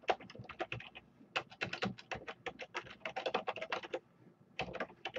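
Computer keyboard typing: quick runs of key clicks, broken by a couple of short pauses.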